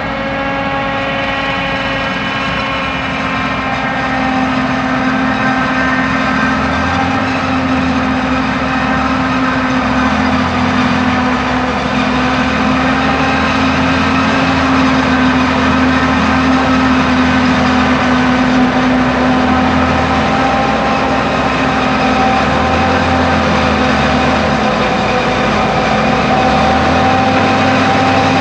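Large diesel farm machinery of a maize silage harvest running steadily, a forage harvester and tractors, getting louder about four seconds in and holding there.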